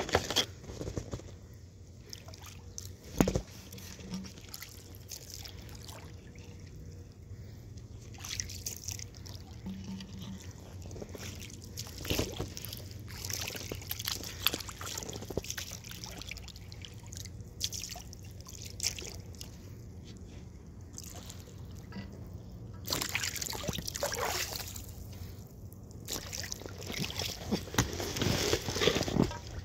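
Water sloshing and splashing against an inflatable boat on a river, with scattered knocks and a sharp thump about three seconds in. The splashing comes in louder stretches near the end.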